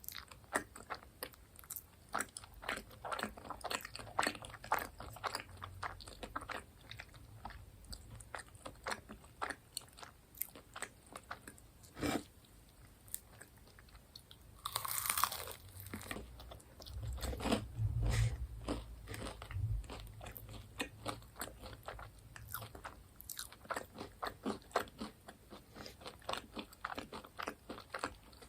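Close-miked eating of crunchy fried food, seasoned fried chicken or cheese balls, with dense crisp bites and chewing crunches throughout. There is one sharper crack about twelve seconds in and a short louder noise around fifteen seconds.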